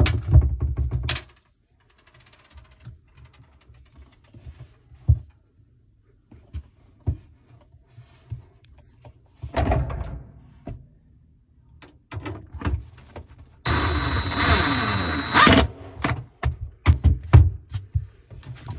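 Cordless drill driving screws into a dishwasher drawer's mounting in short runs, the longest, about two seconds long, coming past the middle with a steady motor whine. Knocks and clicks of the tool and metal parts being handled come in between.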